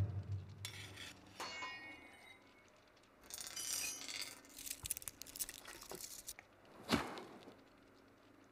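Sound effects of a steel reinforcing bar: light metallic clinks, and a brief ring about a second and a half in. Scraping follows around four seconds in as the bar is bitten, then a single sharp metallic knock about seven seconds in.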